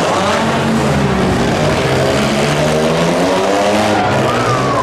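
Engines of several bonestock compact demolition-derby cars revving up and down, their pitches rising and falling over one another.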